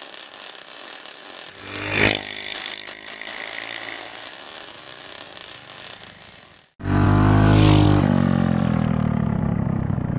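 A steady rushing noise with a whoosh that swells and fades about two seconds in. After a sudden cut about seven seconds in, a mini bike's small engine runs loud as it speeds past, its pitch dropping as it goes away.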